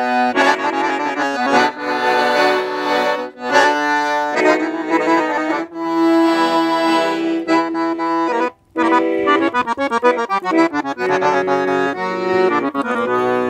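Accordion playing a tune, a melody over held chords, breaking off briefly about two-thirds of the way through.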